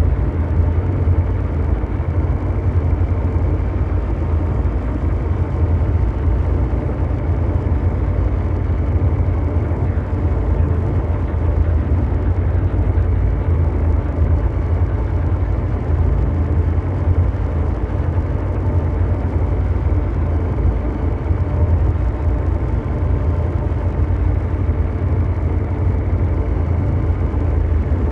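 Continuous mechanical drone: a deep, steady, engine-like rumble with faint steady hum tones above it, unchanging throughout, made as an ambient brown-noise soundscape.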